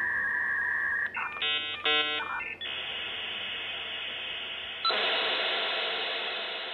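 Dial-up modem connecting: a steady two-note electronic tone, then a quick run of dialing-style beeps about a second and a half in, then a hiss of line noise that jumps louder about five seconds in and slowly fades.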